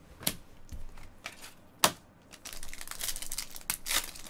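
A few sharp clicks of trading cards being handled and set down, then from about two and a half seconds in a steady crinkling of a foil card-pack wrapper being pulled open.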